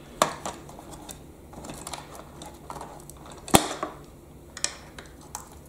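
Screwdriver tip clicking and scraping against the hard plastic tabs inside a toy telehandler's plastic chassis as the tabs are prised free: a string of irregular small clicks, with sharp ones a quarter of a second in and about three and a half seconds in.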